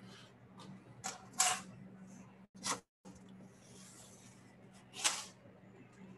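A metal ladle knocking and scraping against a saucepan and a bowl as soup is dished up: a few short clinks, the loudest about a second and a half in and again about five seconds in, over a low steady hum. The sound drops out completely for a moment about two and a half seconds in.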